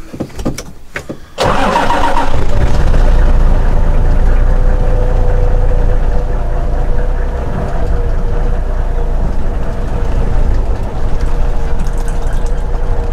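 A few clicks, then a vehicle engine starts about a second and a half in and runs steadily at idle.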